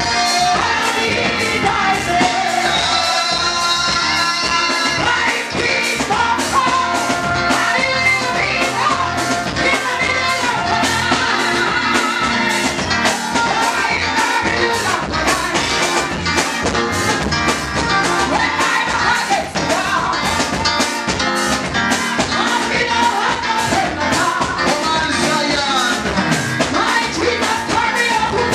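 Gospel music with singing over a fast, steady drum beat.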